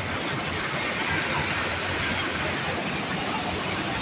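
Steady rushing hiss of steam venting from a sugar mill, with no breaks or rhythm.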